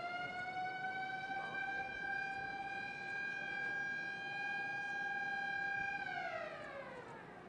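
A siren winding up to one steady high tone with several overtones, holding it for about six seconds, then winding down over the last second and a half.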